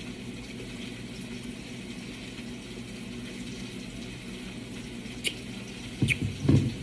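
Chicken cooking on the stove, a steady hiss. Near the end come a click and two short swallows as soda is drunk from a glass bottle.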